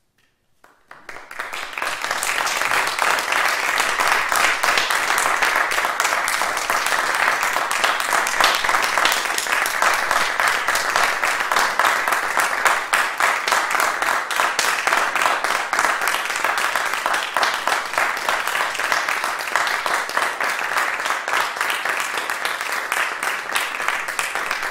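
Audience applauding: the clapping starts about a second in, builds quickly, then holds steady.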